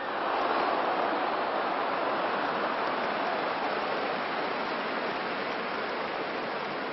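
Stadium crowd noise swelling sharply into a loud, even din at a goalmouth chance, then slowly easing off.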